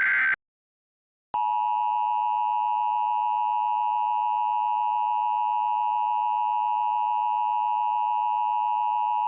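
The tail of an Emergency Alert System SAME header data burst, then about a second of silence, then the EAS attention signal: a steady two-tone alert tone held for about eight seconds that cuts off abruptly at the end.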